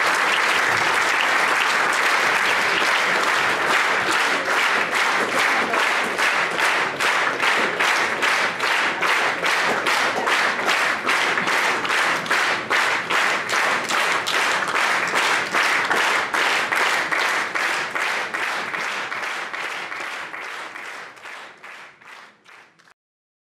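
Audience applauding. The applause turns into rhythmic clapping in unison, about two to three claps a second, then fades and cuts off near the end.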